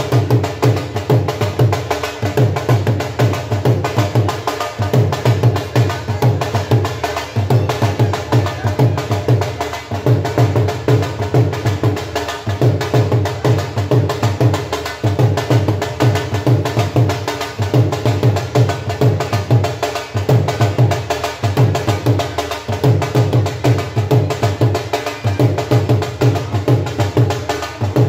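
Dhol, the double-headed barrel drum, played in a fast, steady beat of deep bass strokes and sharp higher strokes.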